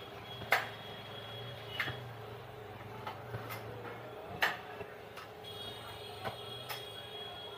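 A mesh high-back office chair's tilt mechanism clicking and knocking as the seat rocks back and forth under a sitter: about five sharp clicks, spaced unevenly.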